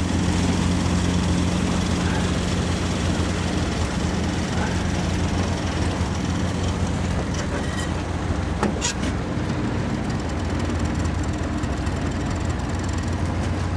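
Suzuki DT-40 three-cylinder two-stroke outboard running steadily at low cruising speed, a constant low hum under a broad hiss.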